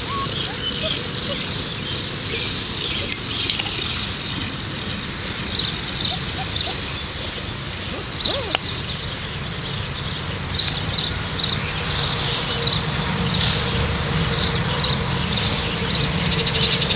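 Birds chirping in the background, in short repeated clusters that grow busier from about a third of the way in. Four-week-old Alaskan Malamute puppies give a few short squeaks while they play.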